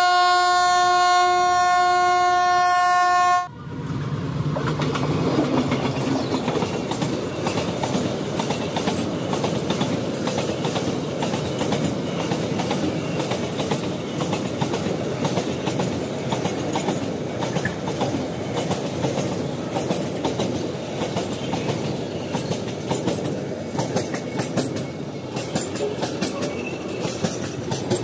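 Diesel locomotive horn sounding one steady blast that cuts off about three seconds in. Then a long train of oil tank wagons rolls past close by with a steady rumble, the wheels clattering over the rail joints.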